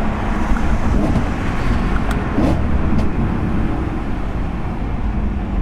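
A car driving at a steady pace: continuous engine and road noise, even in level, with no revving.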